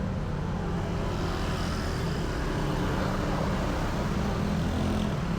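Steady motor-vehicle engine rumble of street traffic.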